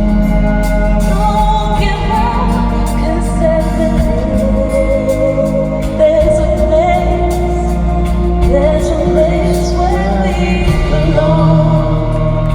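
Live band music: a voice singing a wordless melody over held keyboard chords and a steady bass.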